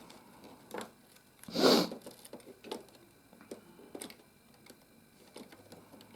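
Plastic Lego pieces handled and clicked together: scattered small clicks, with one louder scraping rustle about a second and a half in.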